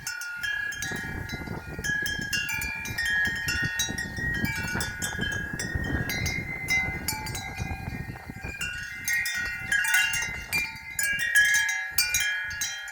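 Wind chimes jangling in the wind: many metal tones struck at irregular times, overlapping and ringing on, over a low rumble of wind.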